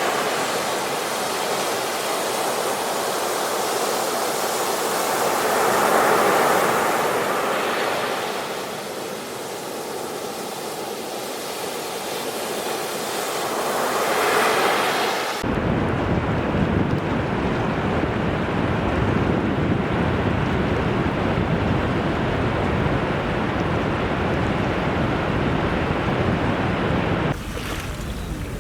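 Ocean waves surging and washing back, swelling loudest twice in the first half. About halfway through it cuts suddenly to a different sea recording: a steady, heavier rushing with a strong low rumble and wind on the microphone. Near the end it cuts again to a quieter stretch of sea.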